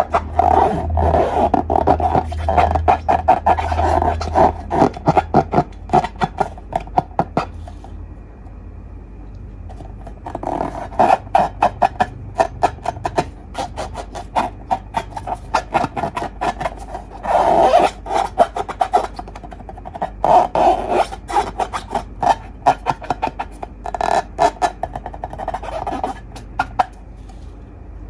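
Slime being squished and worked by hand, giving rapid sticky clicks and pops in spells, with a pause near the middle.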